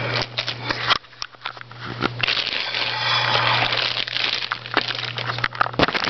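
Clear plastic wrapping crinkling and crackling as a telescope tube is handled inside its bag, with many small clicks. It is sparse early on and gets denser from about two seconds in, over a low steady hum.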